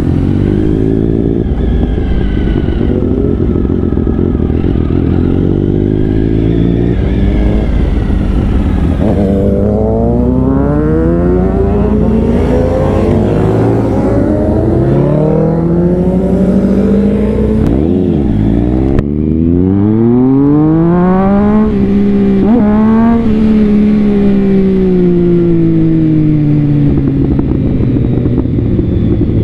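Sport motorcycle engines revving and running through the gears, the pitch climbing and dropping again and again, with a long wind-down near the end. Wind rushes over the helmet-mounted microphone throughout.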